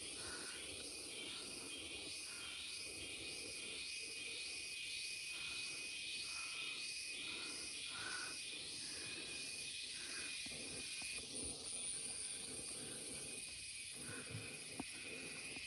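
Rainforest cicada chorus: a steady high buzz with a rhythmic pulsing call over it, about two pulses a second, which stops about eleven seconds in while the buzz carries on.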